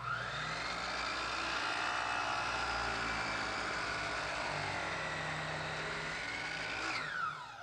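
Electric miter saw (chop saw) motor starting with a rising whine and running at full speed while its blade cuts through wooden crown molding. About seven seconds in the motor is switched off and its whine falls away as the blade spins down.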